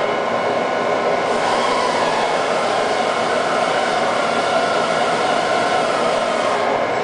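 Cincinnati Gilbert Model J CNC horizontal boring mill running: a steady mechanical hum and hiss with a few steady whining tones in it.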